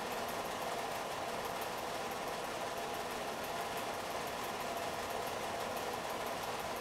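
Home-movie film projector running: a steady motor whirr with faint, regular ticking from the film transport.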